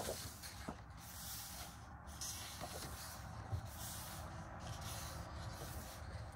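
Paper pages of a colouring book being turned in a flip-through: soft repeated swishes of paper, one every second or so.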